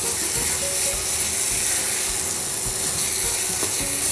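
Crumbled paneer roasting in ghee in a frying pan, sizzling with a steady hiss, while a silicone spatula stirs and scrapes through it.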